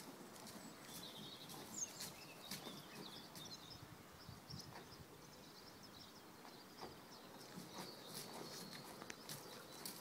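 Faint outdoor ambience of small birds chirping, with soft, irregular hoof thuds of a pony walking on wood-chip arena footing.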